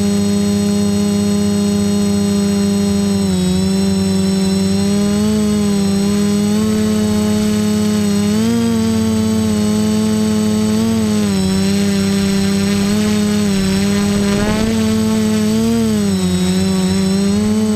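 Quadcopter's electric motors and propellers buzzing in flight, recorded by the camera mounted on the craft. The pitch holds steady but rises and falls briefly every few seconds as the throttle changes.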